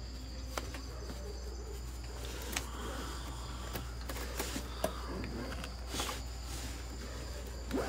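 Quiet night ambience: a steady high insect drone over a low hum, with a few faint scattered clicks and rustles.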